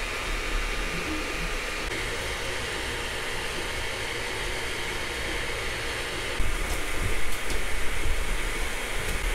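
Sovol SV01 Pro 3D printer running mid-print: the steady whir of its cooling fans, with its stepper motors faint beneath. About six seconds in it gets louder, with a deeper hum and a few faint ticks.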